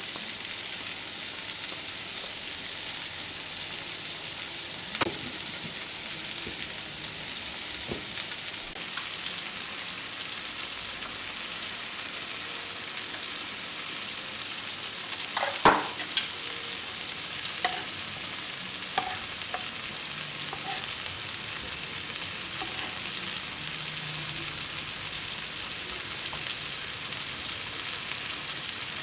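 Chicken sizzling steadily as it fries on a tawa griddle, with a few light utensil clicks and a louder clatter of a utensil about halfway through.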